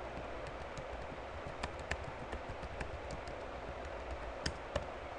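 Computer keyboard keys being typed: a dozen or so irregular clicks over a steady low hum and hiss, with two sharper clicks near the end.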